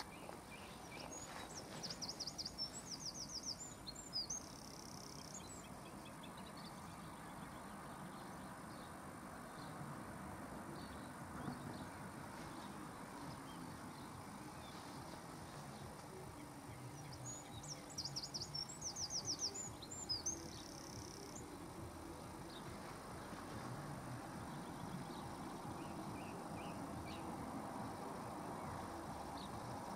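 A small songbird sings the same short phrase twice, a quick run of repeated high notes ending in a longer note. Under it runs a steady low rumble that grows louder near the end.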